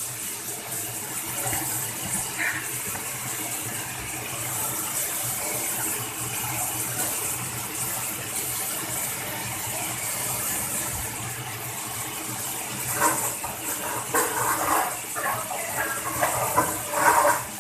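Mushrooms frying in a wok over a gas flame: a steady sizzling hiss with a low hum underneath. Indistinct voices come in briefly near the end.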